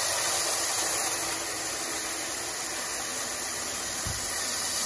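Grade 3 AFM activated-glass filter media pouring from a bag into the tank of a pool sand filter: a steady rushing hiss of glass grains streaming in, with a soft low thump about four seconds in.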